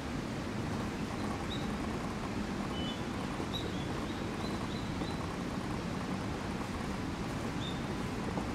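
Steady outdoor background hiss with a few faint, short, high chirps from small birds scattered through it.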